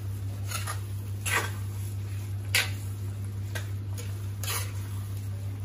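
Metal spoon stirring thick gravy and paneer cubes in a stainless steel kadhai, clinking and scraping against the pan about five times, the loudest about two and a half seconds in. A steady low hum runs underneath.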